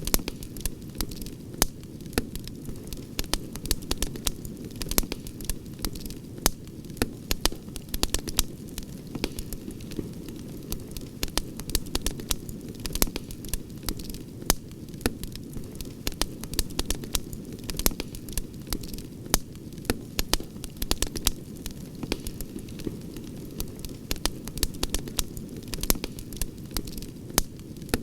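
Campfire crackling steadily, with frequent irregular sharp pops and snaps over a steady low rumble of the flames.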